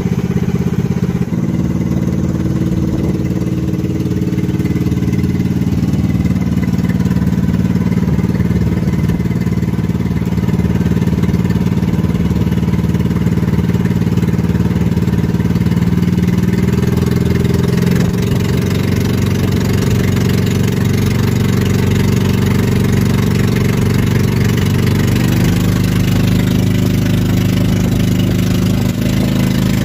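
Outrigger boat's engine running steadily as the boat motors along, its pitch shifting slightly about halfway through and again near the end.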